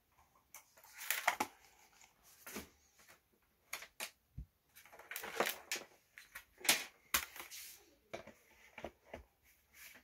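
Hands setting a computer mouse and a laptop down on a folding laptop table: irregular knocks and taps mixed with short rustling scrapes.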